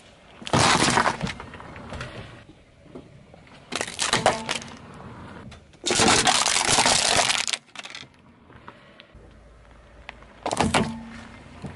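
A car tyre rolling over and crushing crunchy objects: four loud crackling, breaking bursts, the longest lasting about a second and a half in the middle.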